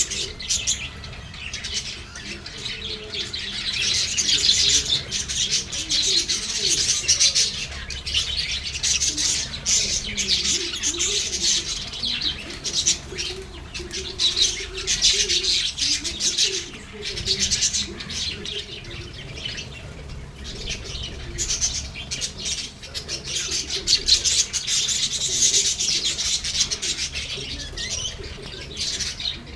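A group of lovebirds chirping and chattering continuously, a dense high twittering that swells and eases in waves.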